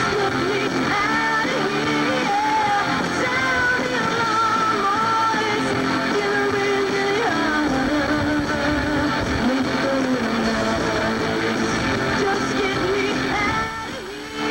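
Rock music: electric guitars with a singer's voice over them. The sound drops briefly near the end.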